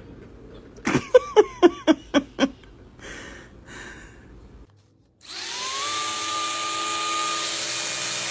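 A quick run of about six short, loud pitched cries, a third of a second apart, about a second in. Then a sudden cut to a small electric motor that spins up with a rising whine and runs steadily.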